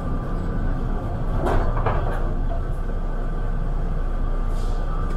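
Interior of an automated airport people-mover train car: the sliding doors shut with a short clatter about a second and a half in, over the car's steady low rumble and thin electrical hum.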